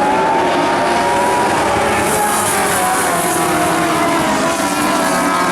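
Lightning Sprint race cars on the speedway track, several engines running hard together, their pitch drifting up and then down as the cars circulate.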